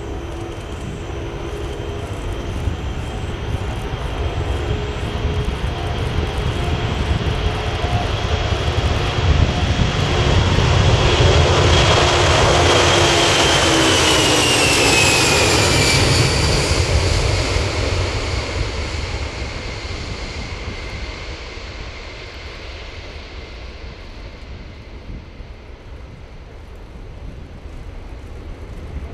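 Boeing 747 Shuttle Carrier Aircraft's four Pratt & Whitney JT9D turbofans at takeoff power during the takeoff run. The jet noise swells to its loudest about halfway through, and the engine whine drops in pitch as the aircraft passes. The sound then fades as it climbs away.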